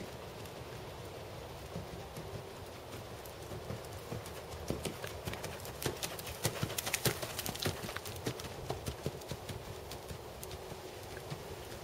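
Hoofbeats of a Percheron/Thoroughbred gelding trotting on a sandy gravel arena: a continuous run of crisp clip-clop strikes that grows louder in the middle as the horse passes close, then fades again.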